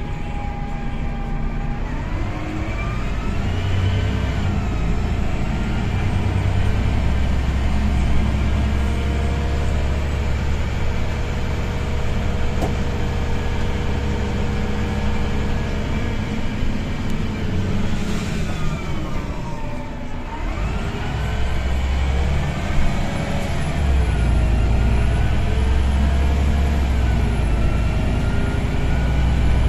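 Cabin sound of a Karosa B961E articulated diesel city bus on the move: a steady heavy engine rumble with a whining tone that climbs in pitch as the bus gathers speed. About two-thirds through, the whine drops away as the bus slows, then climbs again as it pulls away.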